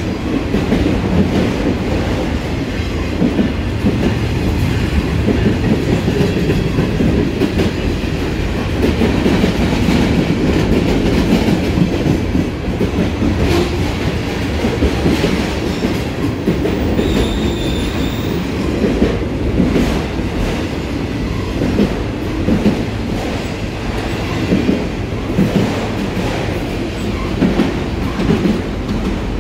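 Freight train of autorack and tank cars rolling past, a steady rumble with the clickety-clack of wheels over rail joints. A brief high-pitched wheel squeal comes a little past halfway through.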